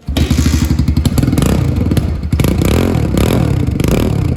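Small single-cylinder pit bike engine running on its stock exhaust and being revved several times.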